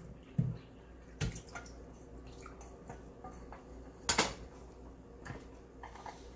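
Thick liquid mixture poured from a small saucepan into a plastic blender cup, dribbling and dripping, with a silicone spatula scraping the pan. A single sharp knock, the loudest sound, comes about four seconds in, with lighter knocks around it.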